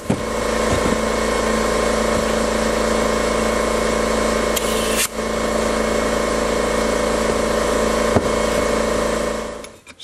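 Air compressor running steadily while inflating a newly tubed garden cart tire a little to seat the tube. It drops out briefly about halfway and stops just before the end.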